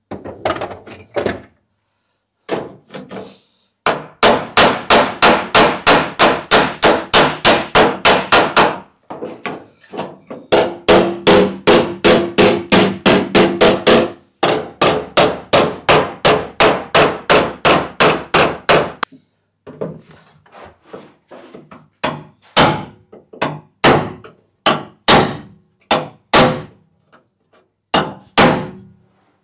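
Body hammer beating out a dent in a car's rear quarter panel: long runs of quick, even blows, about four a second, then slower single blows near the end, struck on a body spoon held against the panel edge.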